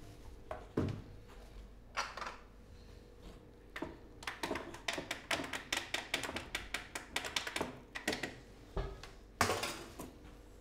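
Knife chopping on a cutting board: a fast run of even taps from about four to eight seconds in, with scattered single knocks before it and a louder clatter near the end.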